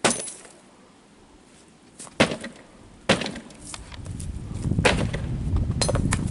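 Firewood being chopped: about five sharp wooden strikes, a second or so apart, with splintering cracks. A low rumbling noise builds through the second half.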